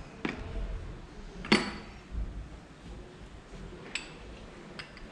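Metal tools and parts clinking against each other: four sharp clinks, the loudest about a second and a half in with a short ring.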